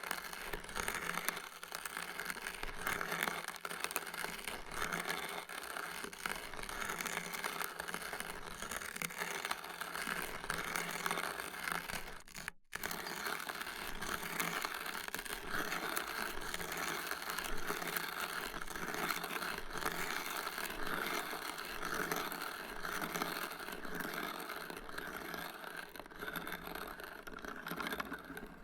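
A hand-cranked antique coffee grinder, about 100 years old, grinding coffee beans: a dense, gritty crunching and crackling that swells and eases in repeated waves as the handle turns. It breaks off briefly about twelve seconds in, then carries on.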